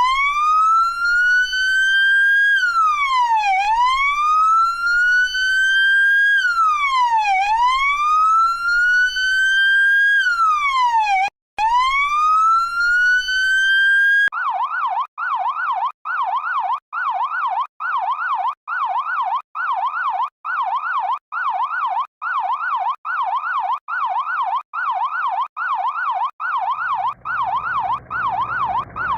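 Electronic emergency-vehicle siren: a slow wail that climbs and drops back about every four seconds, switching about halfway to a fast yelp rising and falling roughly once a second.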